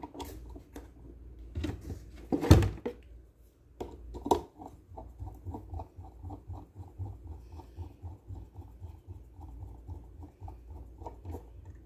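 Plastic parts of a blender being fitted together by hand: a few knocks, the loudest about two and a half seconds in, then a long run of small quick clicks, about four to five a second.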